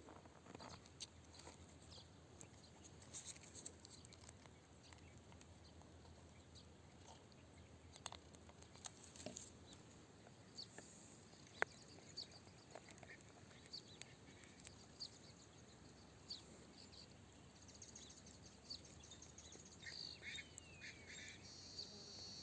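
Near silence with faint, scattered short clicks and taps, a few each second or less, one of them sharper about halfway through.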